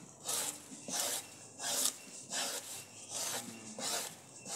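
A hana fibre leaf scraped lengthwise with a wooden stick against a wooden plank, stripping the green pulp from the fibre: repeated rasping strokes, about one and a half a second.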